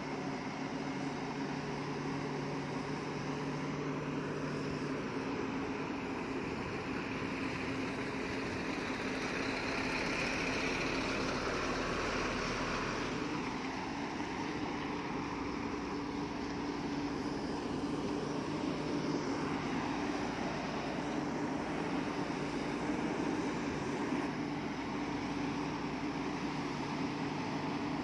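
Diesel engines of heavy earthmoving machinery, a bulldozer and dump truck, running steadily. The sound swells somewhat louder in the middle, and the engine note shifts slightly upward shortly after.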